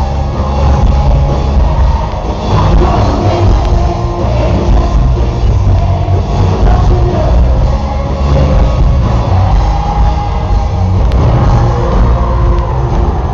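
Live rock band playing loud amplified music with a singer, the bass heavy and dominant.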